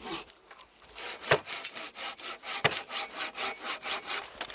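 Hand saw cutting through firewood in quick, even back-and-forth strokes. After a short lull near the start the strokes resume, with a couple of sharper knocks among them.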